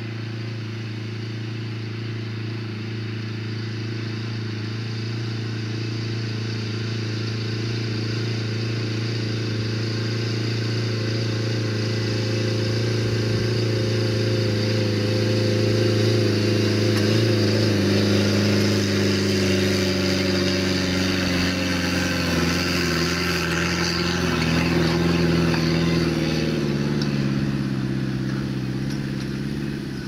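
Engine of a self-propelled crop sprayer running steadily as it drives over the field, growing louder as it approaches. In the second half its pitch slides down as it passes, and the sound eases near the end.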